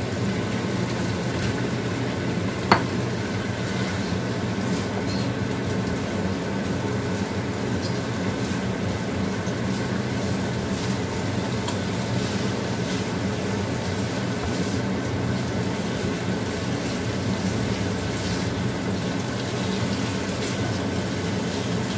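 Chicken and boiled eggs in balado chilli sauce sizzling steadily in a wok over a low gas flame as they are stirred with a spatula, over a steady low hum. A single sharp knock sounds about three seconds in.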